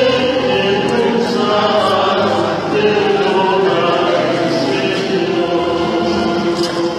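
A crowd of people singing together in long, held notes, like a chanted hymn, inside a church.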